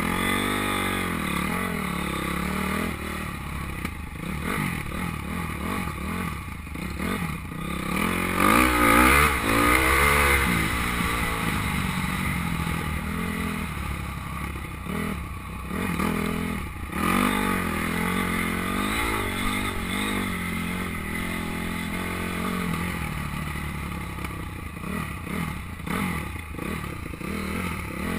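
On-board sound of a Honda 250 motocross bike's engine revving up and down again and again as it rides a sandy track, loudest about a third of the way in.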